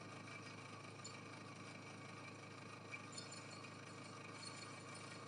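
RYU RSS 125 electric scroll saw running steadily, a faint even hum from its motor and reciprocating blade, with a couple of light ticks about three seconds in.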